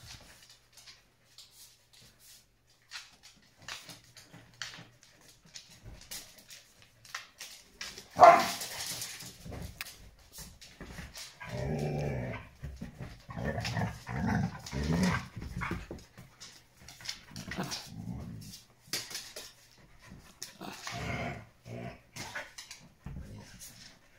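Dogs play-fighting, growling and barking, with a sharp, loud bark about eight seconds in and bouts of growling through the second half.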